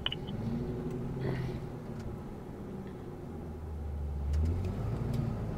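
Vehicle engine and road noise heard from inside the cabin as it pulls away from a stop, the engine growing louder about four seconds in.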